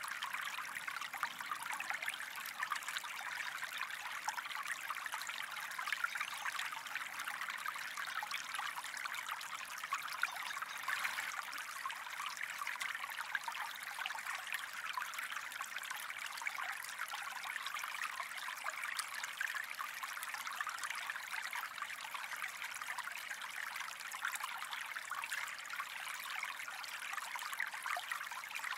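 Gentle stream flowing and trickling: a steady, even rush of water, brightest in the middle-high range, full of small trickles and splashes.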